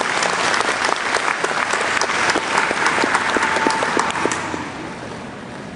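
Audience applauding, dying away about a second before the end.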